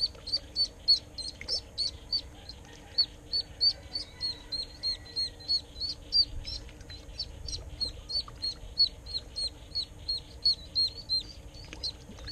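Live duckling used as snakehead bait, peeping over and over, about three high, downward-slurred peeps a second.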